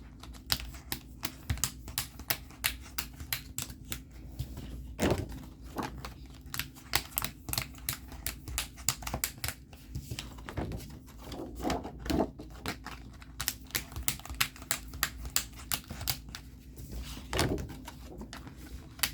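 Rapid, irregular clicking and tapping, several clicks a second, like keys being typed, with a few softer knocks in between.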